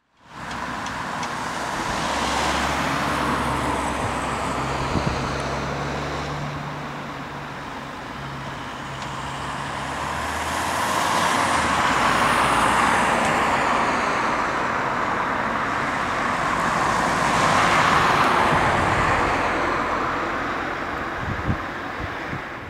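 Road traffic: cars passing on the road, the noise swelling and fading with each pass, loudest about halfway through and again near three quarters of the way. A steady low engine hum lies under it through the first half.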